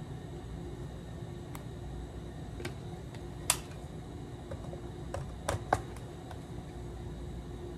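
Sharp plastic clicks of micropipetting, from the micropipette and small plastic tubes, over a steady low hum. There are a few scattered clicks, the loudest about three and a half seconds in, then a quick cluster of three or four about two seconds later.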